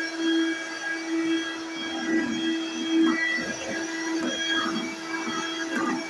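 Small red stick vacuum cleaner running, its motor giving a steady whine as it is pushed back and forth over a hardwood floor, with some rougher rubbing noise from the floor head in the middle.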